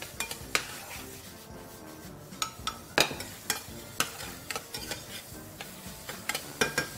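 A metal spoon stirs and scrapes onions, garlic and peppers frying in a stainless steel pan. The spoon clinks against the pan again and again, loudest about three seconds in, over a steady sizzle.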